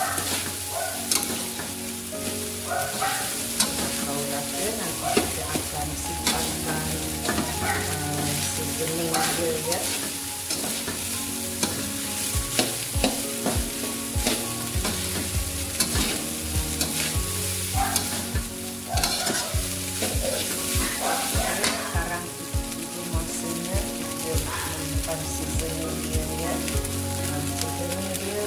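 Fried rice sizzling in a wok while a metal spatula stirs and tosses it, with frequent clicks and scrapes of the spatula on the pan. In the middle comes a run of low knocks, about two a second.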